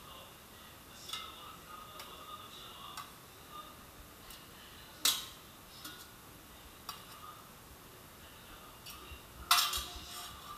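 Metal kitchen tongs clinking against a stainless steel plate and an air fryer basket as sausages are picked up and moved. There are two sharp, louder clanks, about five seconds in and near the end, with lighter ticks between.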